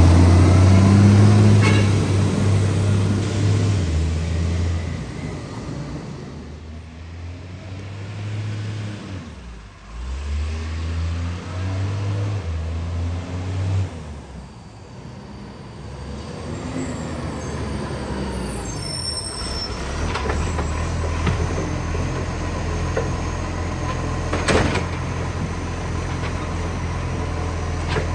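Garbage truck engine with a large exhaust leak, pulling loudly, easing off and pulling again several times, then running more steadily.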